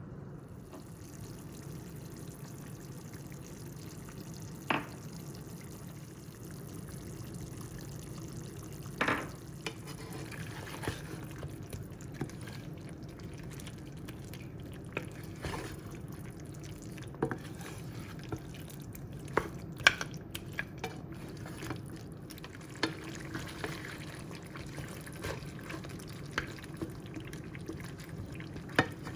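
Hen curry cooking in a pot: a steady low bubbling, with scattered short sharp clicks and pops.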